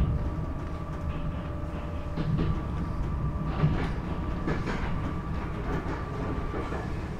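Interior noise of a Chichibu Railway 7500 series electric train under way: a steady low rumble of the wheels on the rails with a steady whine over it, and scattered clicks as the wheels pass over rail joints.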